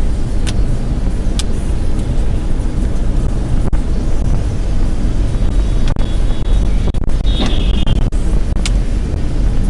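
Steady low rumble of a moving car heard from the inside, as a dash cam records it, with a few faint clicks and a brief high tone about seven and a half seconds in.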